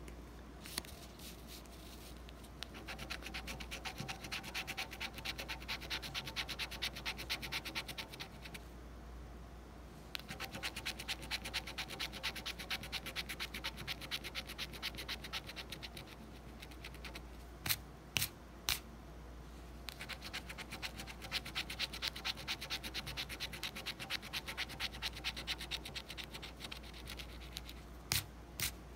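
A coin scratching the silver coating off a paper scratch-off lottery ticket in quick back-and-forth strokes, in three long spells with short pauses between. A few sharp clicks come about two-thirds of the way through and again near the end.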